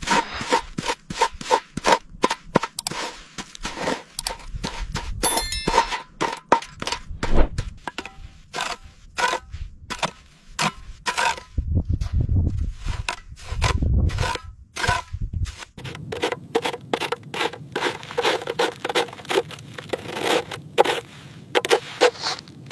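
Rapid, irregular metal clanging and knocking: many sharp strikes, some ringing briefly, with short low rumbles about halfway through.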